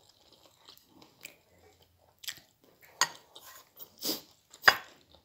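Close-up chewing and mouth noises of a person eating spicy seafood noodles, broken by a few short, sharp clicks and smacks; the loudest comes about four and a half seconds in.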